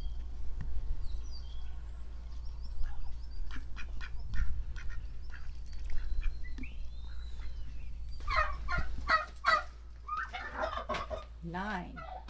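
Domestic poultry calling: a rapid run of loud pulsed calls starts about eight seconds in and carries on to the end, over a steady low rumble.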